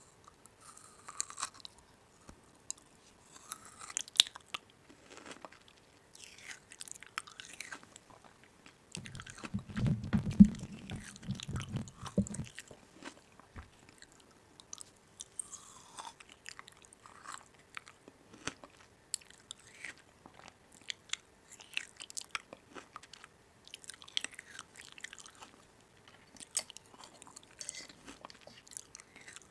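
Close crunchy biting and chewing of crisp food: a run of irregular crackles and clicks, with a louder, deeper stretch of muffled noise about nine to twelve seconds in.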